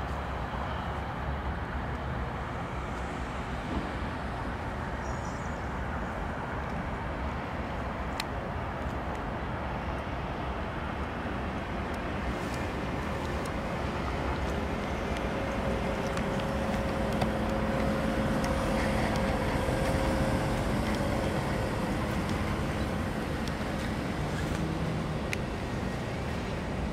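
MaK 6400 diesel-electric locomotive running at a distance: a steady engine rumble with a faint held tone that swells about halfway through, then eases off toward the end.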